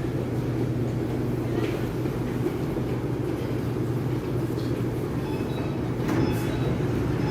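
Shanghai Metro Line 9 type 09A02 electric train running, heard from inside the carriage: a steady low rumble and hum, with a faint high whine joining from about four and a half seconds in.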